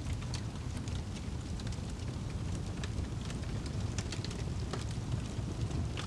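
Wood fire crackling in a fireplace: irregular sharp crackles and pops over a steady low rumble of burning.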